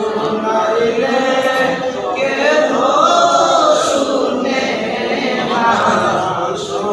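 A group of men singing a devotional chant together, unaccompanied, with long held notes that rise and fall.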